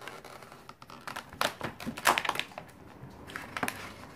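Stiff clear plastic blister packaging crackling and clicking as a knife point is worked into it to cut it open, with a few sharper cracks about a second and two seconds in.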